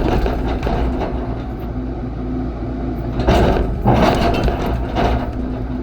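Heavy equipment engine running steadily under load, with two louder scraping sounds a little past the middle as the machine works against rock.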